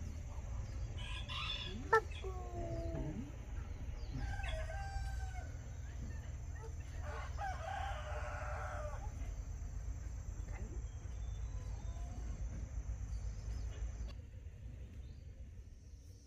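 Chickens calling: a rooster crows once, a long call about seven seconds in, among shorter clucks and calls, over a steady low rumble that fades near the end.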